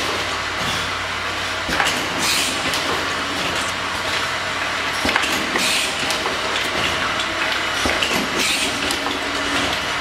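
Automatic filling, plugging and capping line for glass vials running: a steady mechanical clatter from the conveyor and feeders, with scattered clicks and a short hiss about every three seconds.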